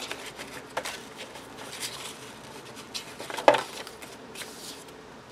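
Paper pages of a disc-bound planner being handled and flipped: light paper rustling with scattered clicks and taps, a sharper tap about three and a half seconds in.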